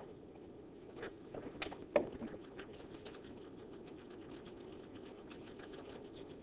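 Faint steady room hum with a few light taps and scrapes about one to two and a half seconds in, the sharpest just after two seconds.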